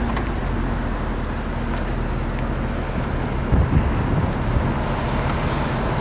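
Steady road-traffic and car-engine noise with a low, even hum, heard through an open car window. A brief cluster of low bumps comes about three and a half seconds in.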